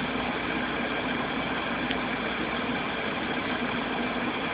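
Steady, unchanging background hum and hiss, like a running machine or fan, with no distinct events.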